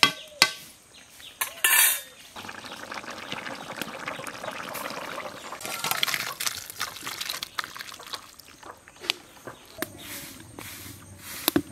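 Boiled bottle gourd (lauki) and potato pieces in a thin spiced gravy being poured from a metal wok into a steel bowl, sloshing and slopping for several seconds. A few sharp knocks come near the start.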